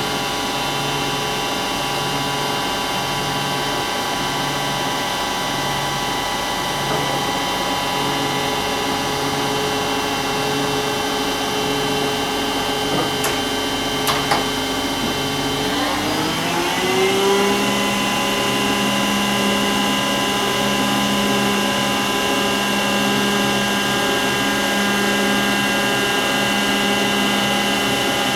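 Hwacheon Mega 95 CNC lathe running its looped program: a steady machine whine with a low throb about once a second. About two-thirds of the way through the pitch rises quickly as the spindle speeds up, then holds steady at the higher speed.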